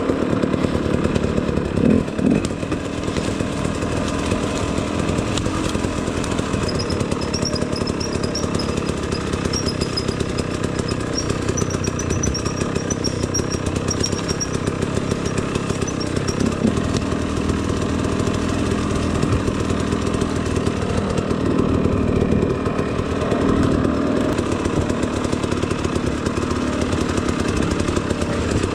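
Two-stroke enduro dirt bike engine running hard and revving up and down with the throttle, a continuous buzzing engine note.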